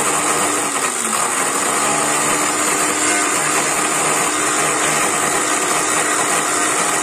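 Electric blender's grinding cup running, milling dried green walnut hulls into a fine powder. The motor's hum sags in pitch briefly about a second in and again near the end.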